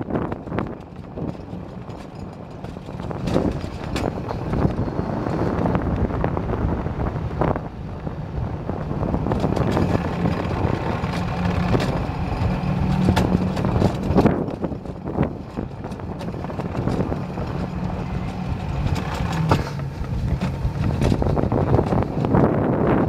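Floomzer alpine coaster sled running down its steel tube track: the wheels rumble and rattle steadily on the rails, with a sharp knock now and then, and wind buffets the microphone.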